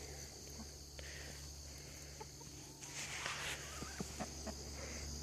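Backyard hens clucking softly, over a steady high chirring of insects.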